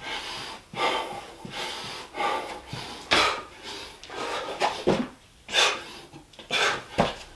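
A man panting hard from exertion in a series of short, heavy breaths while doing burpees, with a couple of dull thumps as his body drops to the floor.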